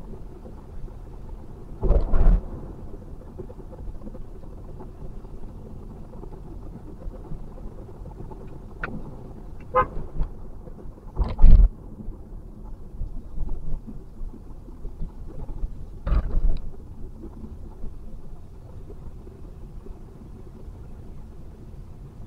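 Steady road and drive noise inside a Toyota Vellfire's cabin in slow city traffic, broken by several short loud thumps, the loudest a little past the middle. Around ten seconds in a vehicle horn toots briefly.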